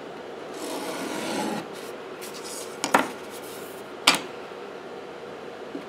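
Utility knife blade scraping along the edge of a copper-clad circuit board blank, scoring it to size: one scrape of about a second near the start, followed by two sharp knocks about a second apart.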